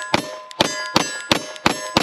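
Rapid 9mm pistol fire at steel targets: six shots in about two seconds at an even pace, each a sharp crack with the steel ringing on after it.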